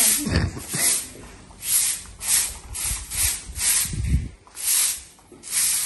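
Short hand broom sweeping over wet concrete in quick rhythmic strokes, about two swishes a second, pushing water and grit along.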